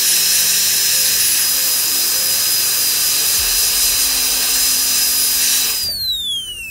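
High-speed dental handpiece whining steadily at a high pitch, with water spray hissing, as its bur cuts a typodont tooth for a veneer preparation. Near the end the handpiece is let go, and its whine falls in a long downward glide as the turbine spins down.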